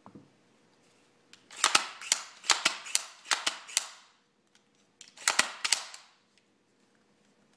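Rifle parts being worked by hand during disassembly: a quick run of about nine sharp metallic clicks and clacks, then a few more about a second later.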